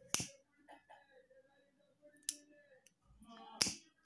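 Hand-held disposable lighter struck three times, each strike a sharp click, the first near the start, then about two seconds later, then just over a second after that; the flame catches on the last strike.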